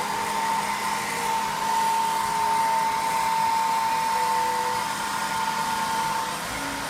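Toy hair dryer running: a steady whirring hiss with a thin, high hum over it that fades out near the end.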